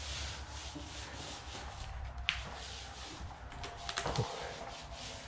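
Epoxy primer being spread over a floor with a roller: a continuous swishing rub of the applicator on the surface, with a sharp click a little over two seconds in and a few light knocks around four seconds.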